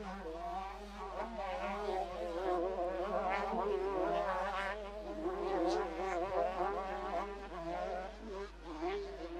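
Several motocross bike engines racing, their buzzing pitch rising and falling with throttle and gear changes as the bikes overlap.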